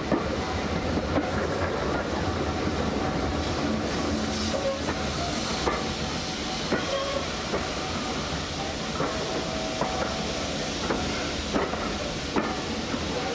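Steam-hauled passenger train running slowly, heard from a carriage window: a steady rumble and hiss with irregular clicks and knocks from the wheels on the track.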